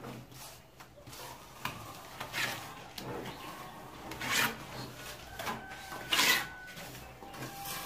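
Steel trowel scraping and smoothing wet cement mortar onto a concrete hollow-block wall. It comes as separate scraping strokes, the loudest near the middle and about six seconds in.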